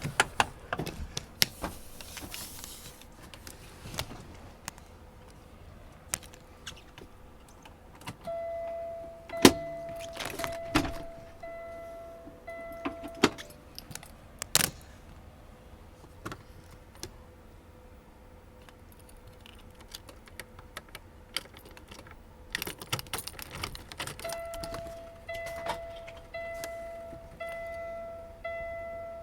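Keys jangling and clicking and knocks in a truck cab, with a dash warning chime sounding twice in a run of about six short, evenly pitched beeps, typical of the key being turned to the on position in a 2019 Kenworth T680.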